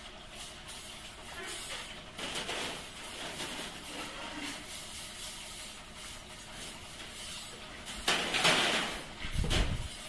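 Belt-driven chain link fence weaving machine running, its electric motor and wire-twisting mechanism making a steady clattering noise. About eight seconds in there is a louder hissing burst, followed by a low rumble.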